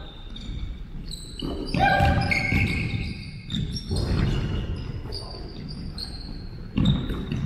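A basketball being dribbled on a hardwood gym floor, with sneakers squeaking and players calling out, echoing in a large gym.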